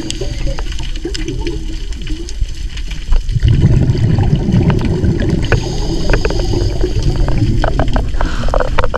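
Scuba diver's breathing heard through an underwater camera housing: a low, gurgling rush of exhaled bubbles from the regulator sets in about three and a half seconds in. Scattered sharp clicks run through it.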